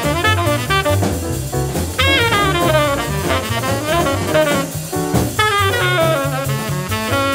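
Jazz quartet playing at a fast tempo: tenor saxophone improvising quick runs over a walking double bass and drum kit.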